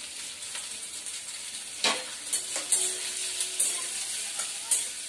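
Sliced onions sizzling as they fry in a kadhai on a gas stove, browning for a curry masala, while a spatula stirs them and knocks against the pan in a few sharp clicks.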